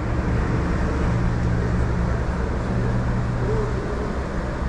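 Street traffic noise: a steady rumble of vehicles with a low engine hum that fades about three seconds in.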